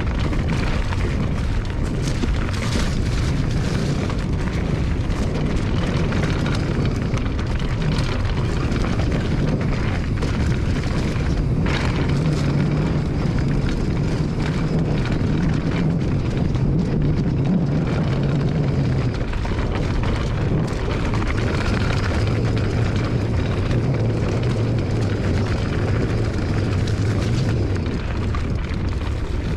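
Wind rushing and buffeting over the microphone of a camera carried on a ride, a steady loud rumble, with a low hum that rises in pitch for several seconds midway and then drops lower.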